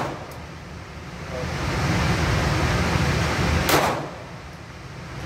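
A single handgun shot about three and a half seconds in, sharp and loud with a short echoing tail in the indoor range, over a steady noisy background.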